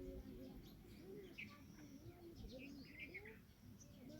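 Birds calling faintly: a run of low, arched cooing notes one after another, with brief higher chirps scattered over them.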